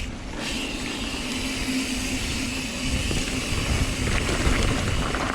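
Mountain bike riding fast down a dirt trail, heard from a camera on the bike or rider: a steady rush of wind over the microphone mixed with tyre noise and the rattle of the bike over the ground.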